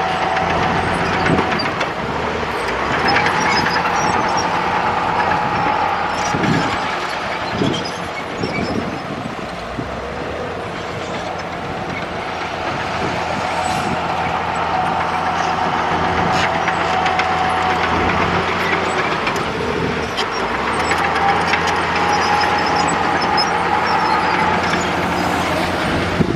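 Komatsu D65E bulldozer's diesel engine running under changing load, with a couple of sharp knocks about six and a half and seven and a half seconds in.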